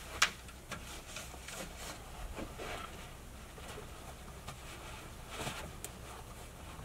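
Shoes being handled and pushed into the pockets of a hanging canvas shoe organizer: soft rustling of canvas and light knocks, with one sharp click right at the start.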